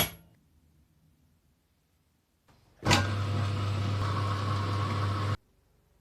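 A sharp click, then a machine with a steady low hum runs for about two and a half seconds and cuts off abruptly.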